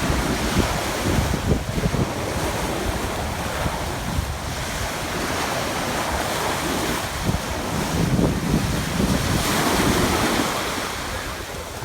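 Wind buffeting the microphone in uneven gusts over the steady rush of sea waves.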